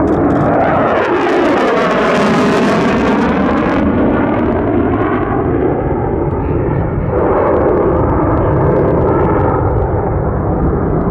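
Single-engine jet noise from an F-35A Lightning II's Pratt & Whitney F135 afterburning turbofan as the fighter flies past overhead. The noise sweeps and phases as the jet moves. A hissing edge is strongest in the first few seconds and fades by about four seconds in.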